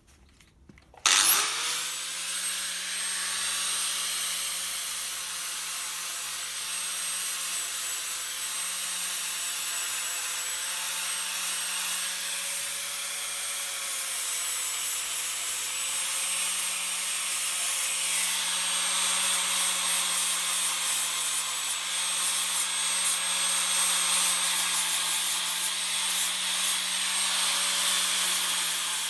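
Angle grinder spinning up about a second in with a quick rising whine, then running steadily with a constant high whine and a rough hiss as it cuts into the motorcycle frame to remove the old rear subframe.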